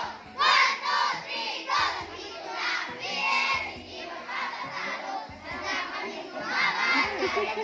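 A crowd of children shouting and cheering together in loud repeated bursts of many high voices.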